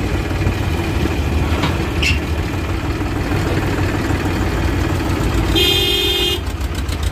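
Powertrac tractor's diesel engine running at road speed, a steady low drone. A vehicle horn sounds once for just under a second near the end.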